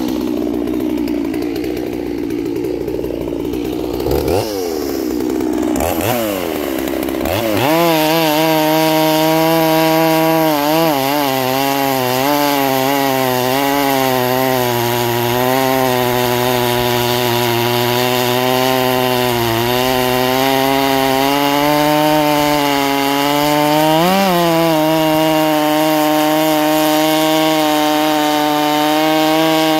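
Holzfforma G466 chainsaw running at low revs, then revving up in a few rising blips and held at full throttle while its chain cuts down through a large log. The engine note sags slightly under load and recovers, with a brief surge in revs about three-quarters of the way through.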